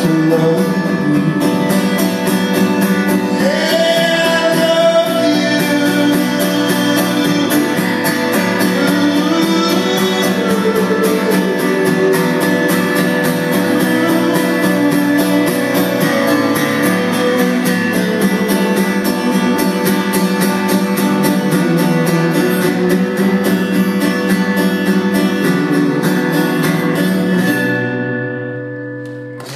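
Acoustic guitar strummed steadily, with a man's voice singing over it at times; the music dies away in the last couple of seconds as the song ends.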